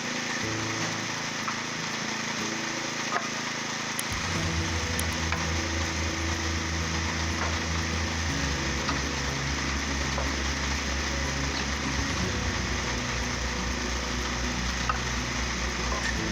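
Large industrial wood grinder running: a steady engine drone under a constant hiss of grinding, with the engine note shifting a few times.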